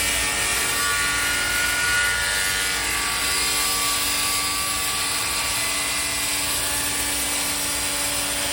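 A shop power tool running steadily: a constant whine of several held tones over a loud hiss.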